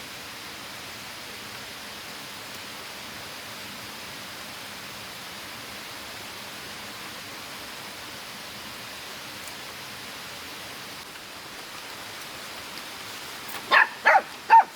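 Steady rush of flowing water; near the end a dog barks three times in quick succession, the loudest sound.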